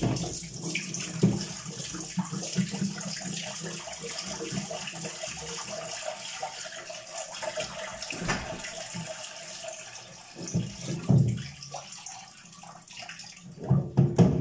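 Water pouring out of a full condenser tumble dryer's plastic water tank in a steady splashing stream for about ten seconds. A few knocks follow near the end as the tank is handled.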